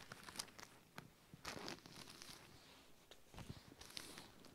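Faint rustling and crinkling of thin Bible pages being turned by hand, with a few soft flicks and taps at irregular moments.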